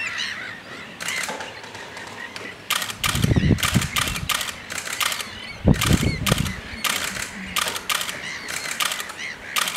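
Camera shutter clicks, irregular single shots and quick runs, going on throughout. Two low rumbles, about three seconds in and again near the middle, are the loudest sounds.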